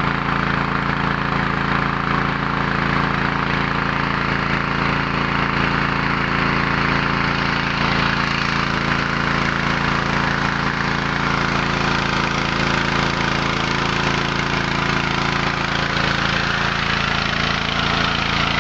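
Mini rice huller-and-polisher driven by a small 6.5–7 hp petrol engine, running steadily.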